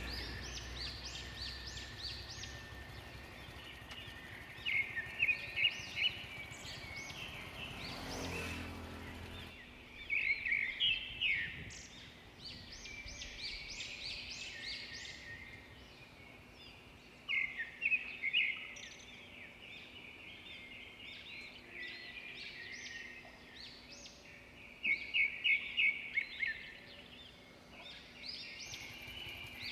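A bird calling in short bursts of quick rising notes, the bursts coming roughly every six to seven seconds. Under it is a faint steady outdoor background, with a brief low rumble about eight seconds in.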